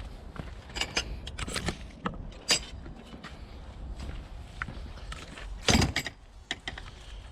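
A runner's footsteps and jostling gear making irregular clicks and knocks, with a louder thump nearly six seconds in, over a steady low rumble.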